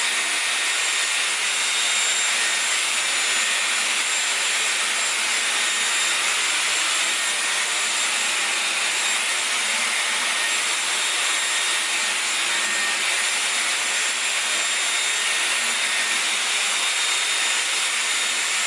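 Dyson Airwrap hair styler running steadily: a loud rush of air with a faint high-pitched motor whine.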